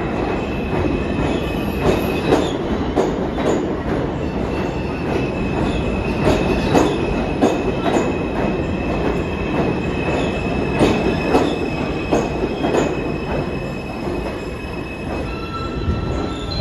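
R160 subway train pulling into the station: steel wheels clack over rail joints under a steady rumble, with a high, steady squeal. The train slows toward a stop near the end.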